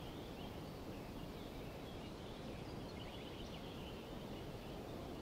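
Faint outdoor ambience: a steady low noise bed with scattered faint, high bird chirps.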